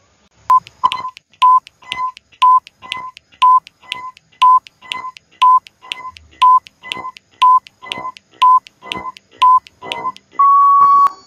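Countdown timer sound effect ticking away ten seconds with short beeps, two a second, ending near the end in one longer beep as time runs out.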